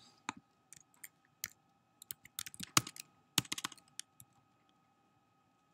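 Typing on a computer keyboard: irregular single key clicks and short flurries of keystrokes, stopping about four seconds in, over a faint steady hum.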